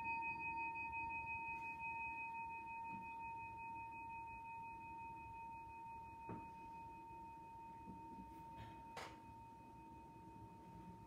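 A single struck bell tone ringing on and slowly fading: one clear steady pitch, its higher overtones dying away over the first few seconds. Two faint clicks partway through.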